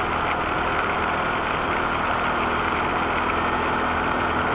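Rastrojero pickup's engine running steadily on the move, with the hiss of tyres on a wet road, heard from inside the cab.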